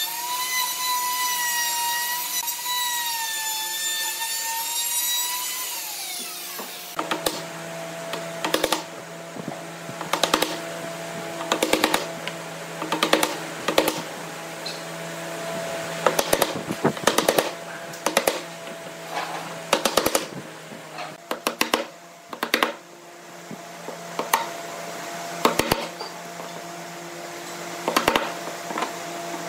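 An electric plunge router runs with a steady high whine while routing bow-tie recesses in the wood, the whine sliding down and stopping about six seconds in. After that comes a wood chisel chopping out the recesses: irregular clusters of sharp knocks and cracks of wood.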